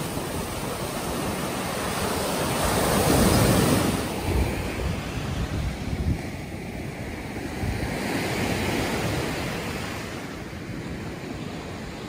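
Black Sea surf breaking and washing up a sandy beach, with the loudest wave crashing about three seconds in. Wind buffets the microphone with low rumbles.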